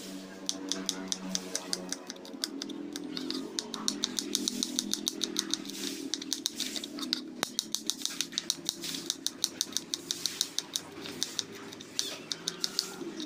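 Small kitchen knife slicing garlic cloves thinly on a plastic cutting board: quick, even taps of the blade on the board, several a second, with brief pauses between runs.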